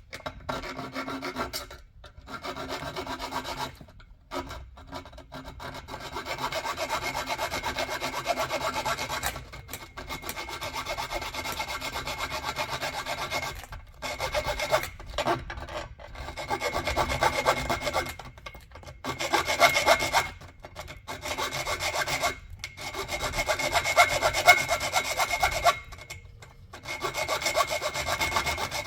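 A hand tool rubbing and scraping on a hard surface in quick, continuous strokes, in passes of several seconds separated by short pauses.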